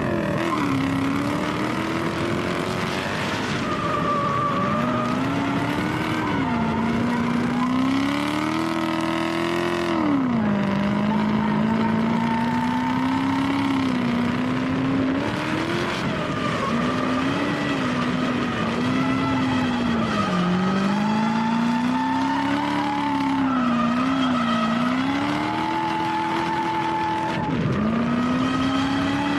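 Lexus SC400 drift car's engine revving up and down hard through a drift run, with sharp drops in revs about ten seconds in and near the end, as its tyres squeal.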